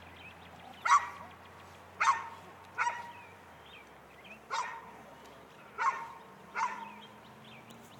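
A dog barking: six sharp single barks at uneven intervals of about a second.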